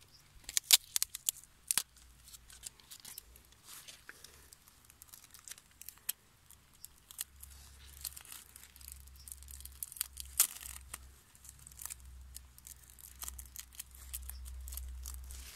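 Sticky tape being pulled, torn and pressed around a closed squash flower to seal it shut, with crinkling and crackling from the tape and petals. Sharp ticks come thickest in the first two seconds and again about ten seconds in.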